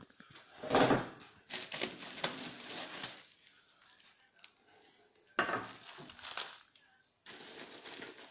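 Plastic wrapping and cardboard box rustling and crinkling in four bursts as a smoker is unpacked, with a thump about a second in.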